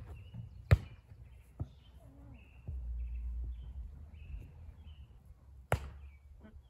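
Volleyball being hit by players' hands in a rally: a sharp smack about a second in, a fainter one just after, and another sharp smack near the end.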